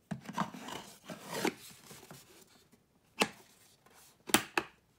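A wooden lock box being handled as its glass lid is slid into place: a scraping rustle over the first second and a half, then two sharp clicks about a second apart, the second the loudest.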